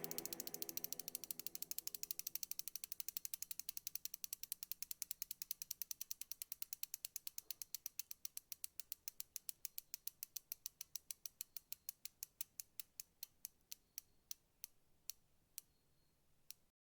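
Bicycle freewheel clicking as a spun wheel coasts down. The ticks start as a fast rattle and slow steadily to single clicks about a second apart, then stop.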